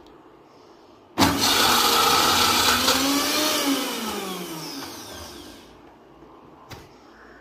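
Mixer-grinder motor whipping mayonnaise in its steel jar, run in one short burst: it starts abruptly about a second in, runs for a couple of seconds, then winds down with falling pitch as it coasts to a stop. A light click near the end.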